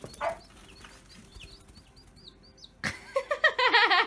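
A sharp knock about three seconds in, then a baby laughing in a rapid, high-pitched string of laughs.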